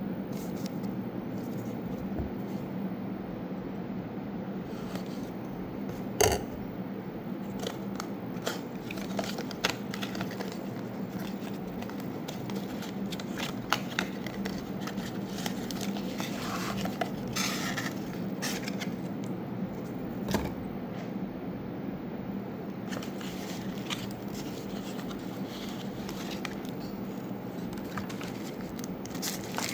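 Unboxing handling noise of a computer mouse's packaging: scattered clicks, taps and scrapes, with one louder click about six seconds in and a brief rustle around seventeen seconds, over a steady low hum.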